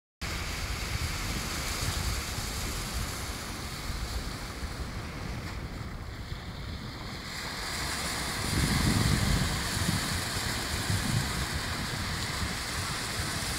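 Sea surf breaking and washing onto a sandy beach, with wind buffeting the phone microphone in low rumbles. The surf swells loudest a little past the middle.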